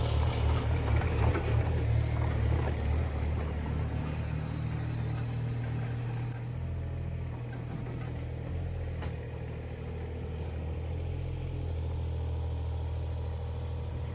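Kubota KX41-3V mini excavator's diesel engine running, louder and busier for the first two or three seconds, then settling to a steady run. One short click about nine seconds in.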